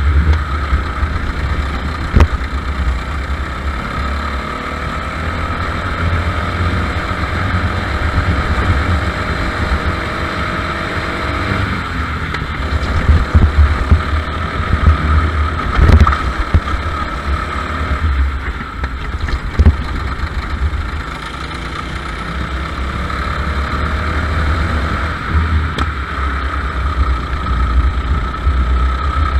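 Racing go-kart engine running hard on track, its pitch climbing steadily along the straights and falling away for the corners. It is heard close up from a camera mounted on the kart, under a heavy low rumble, with a few sharp knocks.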